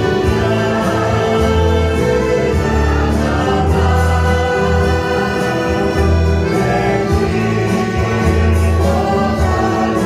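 A church choir singing a hymn, accompanied by an ensemble of acoustic guitars, mandolins, saxophone and accordion over a strong bass.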